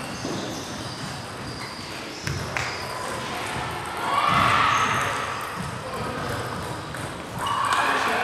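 Table tennis balls clicking sharply off bats and tables, a few taps about two seconds in, over the busy background of a sports hall. A louder rush of noise comes about four seconds in and again near the end.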